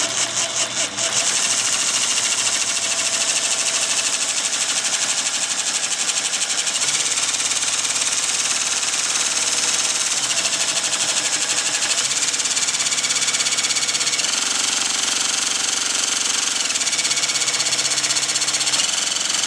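Craftsman CMCS600 cordless jigsaw with a Bosch T130DG diamond blade cutting through ceramic tile. It stutters in a few short bursts for about the first second, then runs steadily through the cut.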